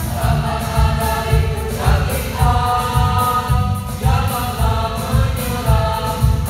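Mixed choir of women and men singing a march through microphones, with a steady low beat underneath.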